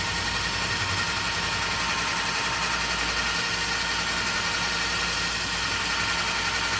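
Electric drill running steadily at high speed with its bit pressed against the workpiece, a continuous motor whine over grinding noise. The drill is set to run in reverse, so the bit is spinning without cutting through.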